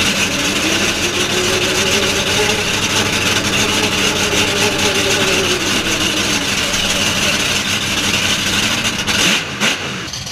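Monster truck engine heard close up from inside the cab, running hard, its pitch climbing and easing back as it revs. Just before the end the sound drops to a lower level.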